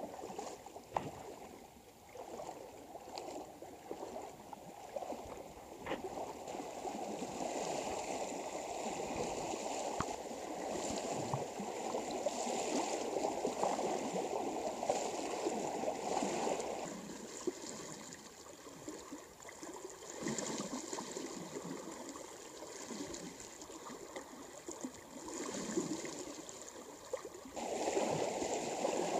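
Water splashing and sloshing around legs wading through a shallow river, an uneven rush that grows louder in the middle and again near the end.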